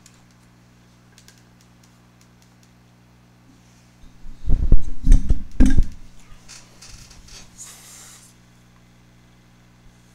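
Computer mouse clicks and keyboard taps at a desk, with a cluster of loud low thumps and knocks from about four to six seconds in, then a brief rustle. A steady low electrical hum runs underneath.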